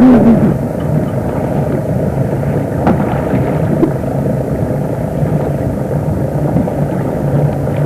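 A steady low engine drone over a constant rushing noise of wind or water.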